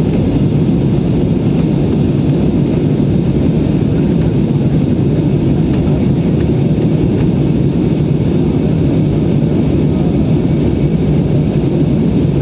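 Aeroplane cabin noise: the aircraft's engines and rushing air heard from inside the passenger cabin as a steady, deep rumble.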